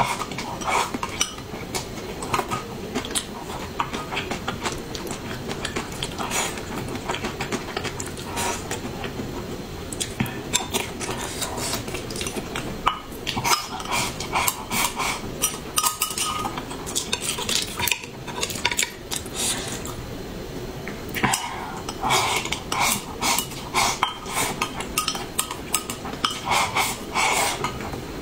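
Chopsticks clicking and scraping against a glass bowl as rice is shoveled from it, in quick clusters of taps separated by short lulls.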